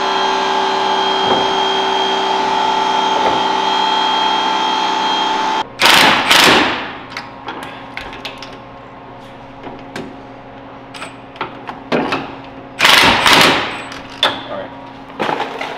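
A power tool's motor runs at a steady whine for the first five or six seconds, then cuts off. A Milwaukee Fuel cordless impact wrench on the front suspension bolts then fires in short bursts of about a second, once about six seconds in and again about thirteen seconds in, with small clicks of tools between.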